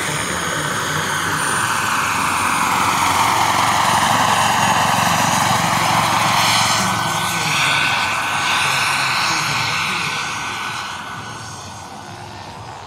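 Turbine-powered radio-controlled Bell 206 JetRanger scale helicopter in flight: the model turbine's steady high whine over the rush of the rotor, swelling as it passes overhead and fading as it climbs away near the end.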